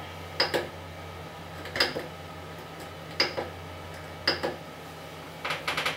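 Clicks from the rotary knob of a 3D printer control box's LCD panel as it is pressed and turned through the menu: single sharp clicks about a second apart, then a quick run of several ticks near the end.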